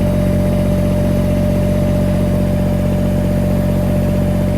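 Tractor engine idling steadily, with a thin steady tone over the engine's drone.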